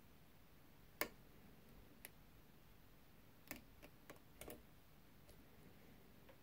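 Mul-T-Lock Junior lock being picked: scattered small metallic clicks of the pick and tension tool working in the keyway, at an uneven pace. The loudest click comes about a second in, and a quick cluster follows in the middle.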